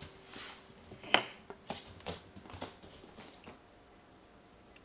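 Footsteps on a laminate floor, a handful of soft steps that stop about three and a half seconds in, with one sharp tap about a second in.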